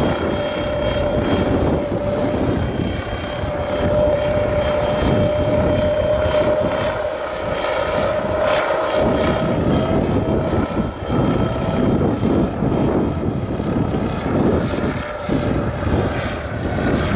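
Research drone in flight at full payload, its motors and propellers giving a steady hum with one held tone, over an uneven low rumble.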